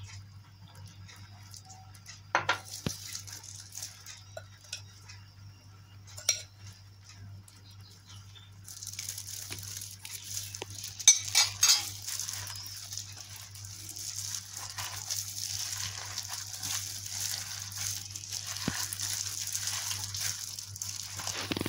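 Dough mixture of bread, flour and chopped vegetables being mixed in a glass bowl: a few sharp clinks of a steel spoon against the glass in the first seven seconds, then from about nine seconds in a continuous rustling and squishing as a plastic-gloved hand works the mixture, with a couple of louder clinks around the middle.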